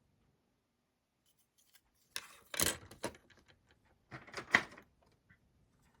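Plastic model-kit sprues being handled: two short spells of rustling and clicking plastic, about two seconds in and again about four seconds in.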